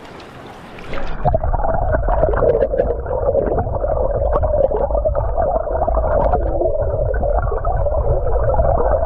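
Muffled, gurgling rush of river current heard with the microphone underwater, starting about a second in.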